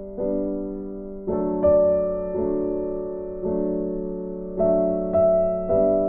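Background piano music: notes and chords struck about once a second, each left to ring and fade.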